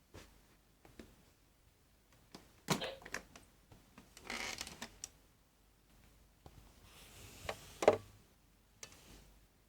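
Plastic toy microwave being handled: scattered clicks and light rattles, a short rustling stretch about four seconds in, and a sharp click just before eight seconds.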